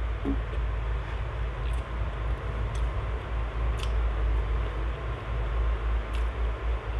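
A steady low rumble, with a few faint soft clicks of someone chewing and eating by hand.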